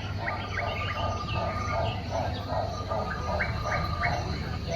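Recorded animal calls from an animatronic animal display: a rhythmic call repeating a little more than twice a second, with sharp high chirps over it and a steady low hum underneath.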